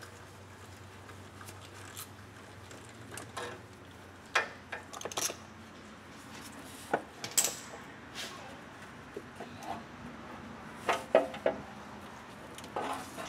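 Scattered metallic clinks and knocks of a 4L60E transmission's steel pan being worked loose: the last pan bolts come out while the pan is held up by hand. There are about a dozen short, sharp taps at irregular intervals.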